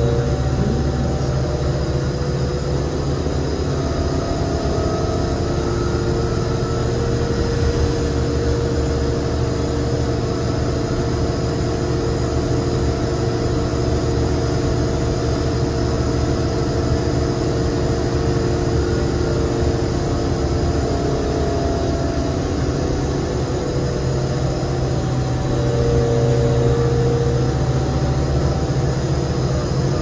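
A New Flyer D35LFR transit bus driving, heard from inside the cabin: its Cummins ISL diesel engine and Allison B400R automatic transmission give a steady low drone with a whine that drifts in pitch, growing a little louder briefly near the end.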